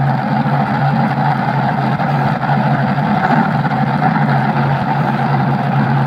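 Steady running engine of a motor vehicle, a constant low hum with a rough rumble over it, dubbed as the engine sound for a toy fire truck.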